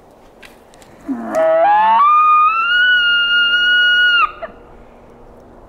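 Elk bugle call blown by a hunter through a bugle tube: starting about a second in, a low note glides up into a high whistle held for about two seconds, which breaks off suddenly.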